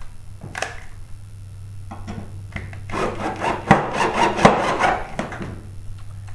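Cordless drill driving a screw through a ballast circuit board into a sheet-metal mounting frame: a rough, grinding rasp lasting about two and a half seconds, starting about three seconds in, after a few brief handling knocks.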